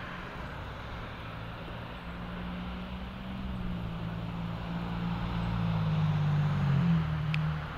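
Engine hum of a passing motor vehicle, growing louder over several seconds and dropping slightly in pitch near the end. A short high chirp sounds just before it fades.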